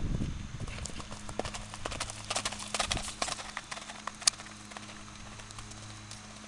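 Hoofbeats of an off-the-track Thoroughbred gelding being ridden around a course, a quick uneven run of hoof strikes that fades out after about four and a half seconds.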